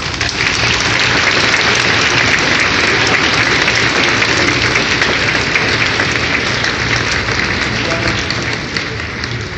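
A large congregation applauding: many hands clapping together, rising at once to a full, steady ovation and easing slightly near the end.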